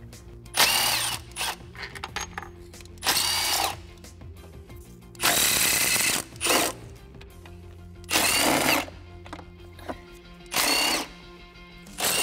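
Cordless Milwaukee power tool with a socket on an extension, whirring in about six short runs under a second each as it spins out the 10 mm intake manifold bolts. Background music plays throughout.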